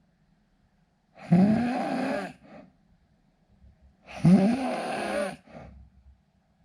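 A man snoring in his sleep: two long snores about three seconds apart. Each is pitched and rises at the start, and is followed by a short, fainter tail.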